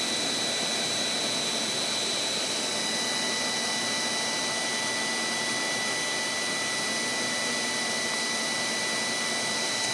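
A small air blower runs steadily, drying the teeth with a whooshing hiss and a thin high whine that sounds like a little hair dryer.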